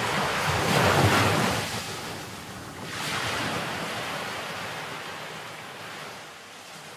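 News-bulletin transition sound effect: a long, noisy, wind-like whoosh. It swells, dips briefly about three seconds in, swells again and slowly fades.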